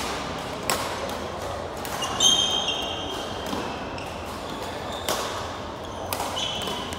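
Badminton rally: sharp smacks of rackets striking a shuttlecock, one to three seconds apart, with a sneaker squealing on the court floor about two seconds in, the loudest sound.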